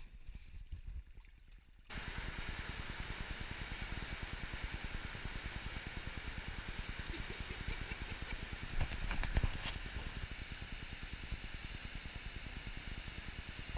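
A fast white-water mountain river running, a loud steady rush of water that cuts in suddenly about two seconds in. Before that there is only the soft trickle of a small brook.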